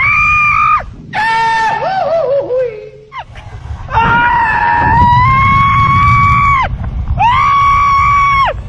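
A man screaming in terror in four long, high-pitched wails, the second wavering and sliding down in pitch. Wind rumbles on the microphone underneath.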